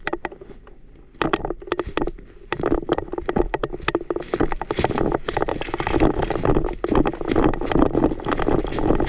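Rapid, irregular rustling, knocks and footfalls of someone moving quickly on foot, with gear and clothing rubbing close to the microphone. It is quieter for about the first second, then gets busier and louder.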